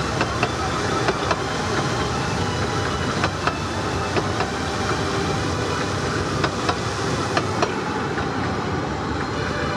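A Ravenglass and Eskdale Railway train running on its 15-inch gauge track: a steady rumble with irregular sharp clicks.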